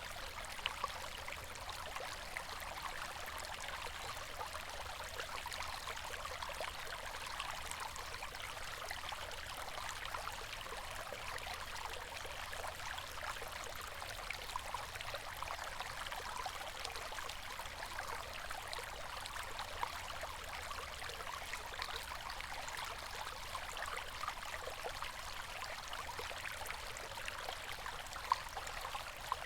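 A river flowing steadily, water babbling and splashing over stones, with small droplet-like plinks throughout and a couple of brief sharper ticks.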